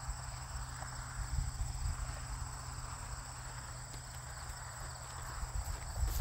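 Steady high insect chirring with soft hoofbeats of a ridden horse on grass underneath, the hoof thuds growing louder near the end as the horse comes close.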